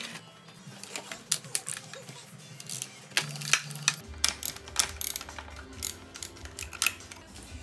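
Background music over irregular sharp clicks and clacks of hand tools and small metal parts being handled. The music fills out with a bass line about four seconds in.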